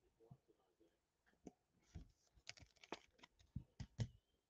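Faint, scattered clicks and taps of trading cards and card cases being handled on a tabletop, with a few sharper taps near the end.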